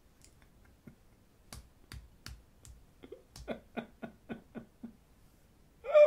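A few sharp clicks, then a man chuckling in short pulses about four a second, breaking into a loud laugh near the end.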